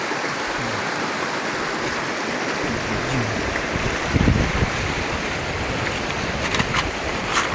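River water rushing in a steady, loud wash. From about four seconds in, low wind buffeting on the microphone joins it, and a few sharp clicks come near the end.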